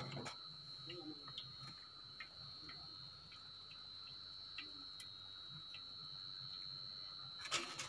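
Scattered faint ticks and crackles of pappadam frying in hot oil, about one or two a second, over a steady faint high whine. A steel slotted ladle clinks against the aluminium pan just after the start and again near the end.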